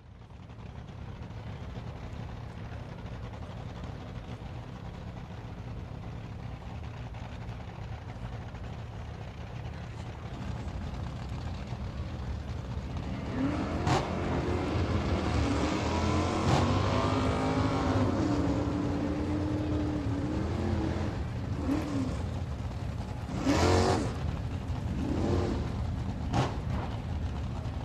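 Sports car engine running with a steady low rumble, then revving, its pitch rising and falling for several seconds, followed by a few short, sharp revs near the end.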